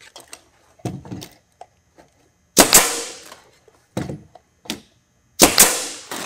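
Pneumatic roofing nailer firing twice, about three seconds apart, driving nails through corrugated aluminum corner flashing into the roof. Each shot is a loud sharp double crack that trails off. Softer handling knocks fall between the shots.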